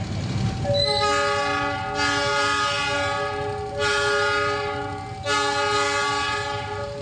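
Train air horn blowing a long, loud multi-tone blast that starts about a second in and is pulsed three more times before it stops near the end. A level-crossing warning signal sounds steadily underneath in a two-note pattern.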